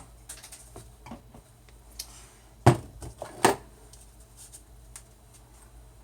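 Hard objects being handled and set down: scattered light clicks, with two louder knocks close together about three seconds in.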